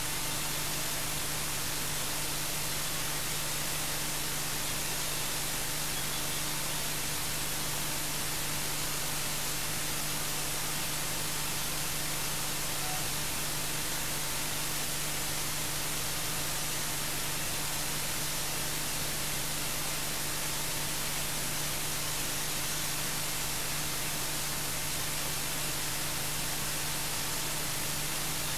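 Steady electronic static hiss, even from low to high pitch and unchanging throughout, with a faint constant hum beneath it.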